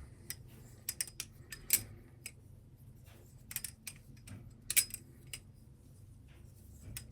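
BRS Alpha Beast balisong being flipped: its handles and blade clack together in irregular sharp metallic clicks, some in quick clusters of two or three.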